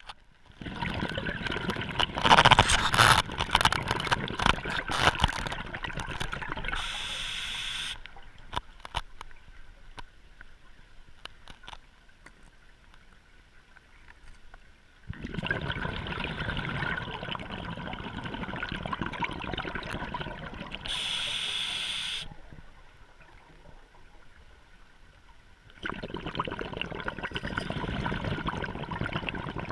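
A scuba diver breathing through a regulator underwater: three long stretches of exhaled bubbles gurgling, two of them followed by a short hiss of inhalation, with quieter pauses between breaths.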